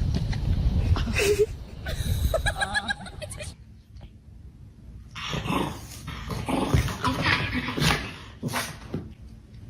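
A dog vocalizing in several short, pitched calls in the first few seconds, followed by noisier sounds.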